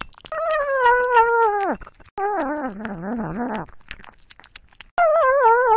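A ginger cat eating wet food into a small microphone lying in its bowl, giving long drawn-out mewing calls as it eats. There are three calls of about a second and a half each; the second is lower and wavers, and the last begins near the end. Short clicks of chewing fall between them.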